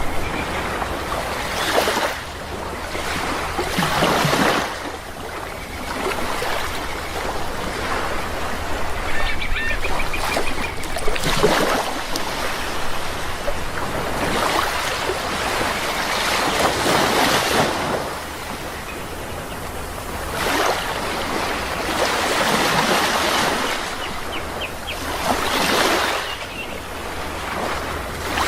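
Sea waves washing in and breaking, swelling and fading every few seconds, with short bird calls heard about ten seconds in and again near the end.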